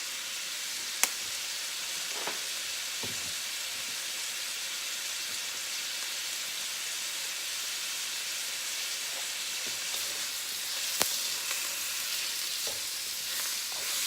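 Vegetables frying in grapeseed oil in a wok, sizzling steadily, with two sharp clicks, about a second in and near the end.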